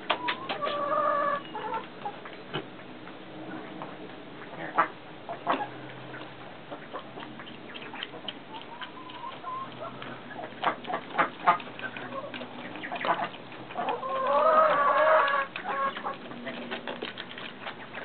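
Chickens clucking, with a longer drawn-out call about a second in and a louder one around fourteen to fifteen seconds in, among many scattered short clicks.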